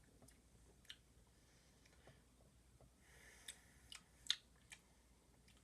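Faint handling noises: a few scattered light clicks and taps, with a brief soft rustle about three seconds in and the sharpest click a little after four seconds.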